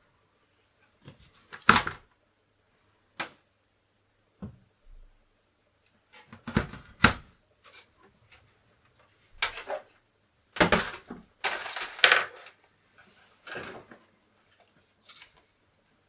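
Irregular clicks, knocks and brief rattles of hands handling an opened Commodore 64's plastic case and parts, with the loudest clusters about two, seven and eleven seconds in.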